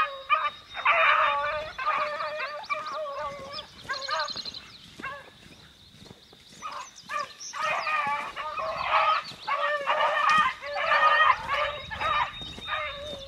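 A pack of beagles baying in repeated cries while running a rabbit, the hound voice that shows they are on its track. The baying drops away for a few seconds in the middle and then picks up strongly again.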